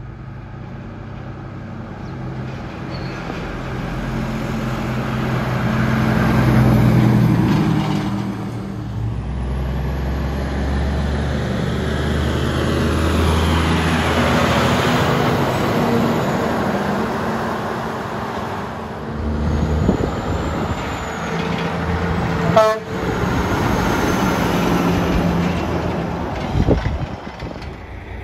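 Loaded log trucks' diesel engines passing one after another: a heavy engine sound that builds over the first several seconds and stays loud, with tyre noise. Two short, sharp sounds stand out near the end.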